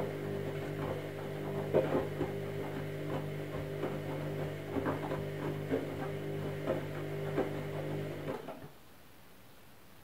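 Candy Smart Touch front-loading washing machine tumbling its wet load in the wash: a steady motor hum with irregular sloshing thuds as the load drops in the drum. The motor stops about eight and a half seconds in, and the drum falls still.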